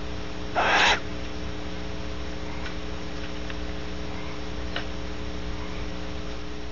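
A female barn owl gives one short, hoarse wheeze about half a second in, the hissing call she makes after mating. The wheeze comes over a steady electrical hum, with a few faint ticks later on.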